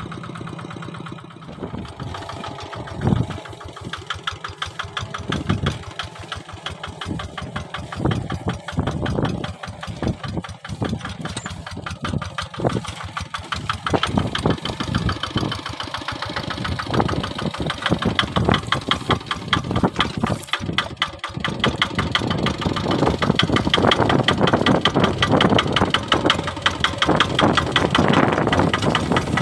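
Kubota RD 65 DI-1S single-cylinder diesel engine on a Quick Impala two-wheel hand tractor, running with a chugging beat. The beats come more spread out in the first half, then the engine runs quicker and louder over the last several seconds.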